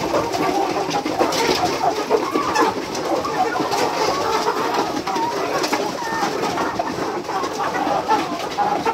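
A large flock of young chickens calling all at once: a dense, steady mass of overlapping chirps and calls.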